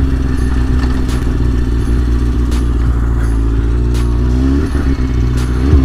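Kawasaki Ninja 636 sport bike's inline-four engine running at low speed in traffic. The note is steady, then rises with a little throttle about four seconds in, dips briefly, and rises again near the end.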